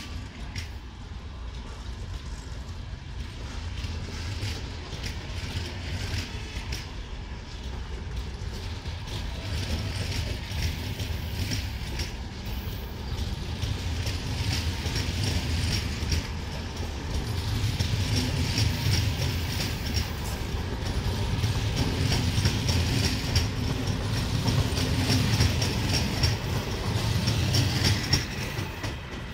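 Passenger coaches of a long train rolling past at speed, a steady rumble with a rhythmic clatter of wheels on the rails. It grows louder toward the end and falls away as the last coach clears.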